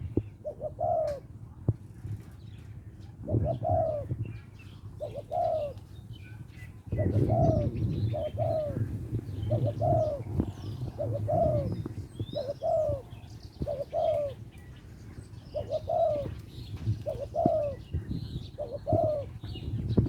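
Spotted dove cooing repeatedly, its mate-calling song: short hooting notes about once a second in loose runs. Small birds chirp faintly above it, and a low rumble underneath grows louder about seven seconds in.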